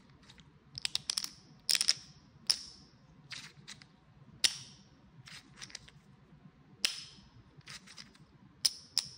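Apache Majestic china clay poker chips clacking as they are counted off a stack in the hand and set down on a stack on a granite countertop: sharp clicks with a bright ring, singly and in quick little clusters, every second or so.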